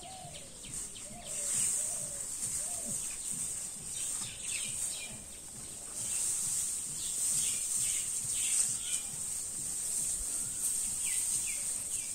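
Outdoor rural ambience: birds chirping in short calls now and then over a steady high-pitched hiss.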